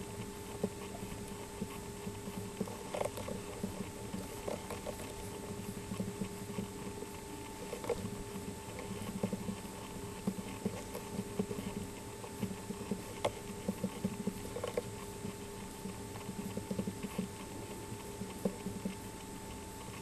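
Scattered light clicks and taps, like a computer mouse and keyboard in use, irregular and sometimes in quick runs, over a steady electrical hum with a faint high whine.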